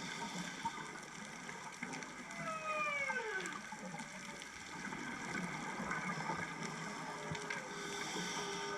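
Humpback whale song heard underwater: about two and a half seconds in, a call slides steadily down in pitch with several overtones, and near the end a steady held tone sounds, over a constant hiss and crackle of the sea.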